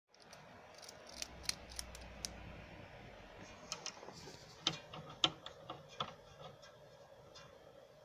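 Small metal clicks and clinks as a tubular key blank is handled, seated in the key-cutting machine's clamp and its screw knob tightened, over a faint steady hum.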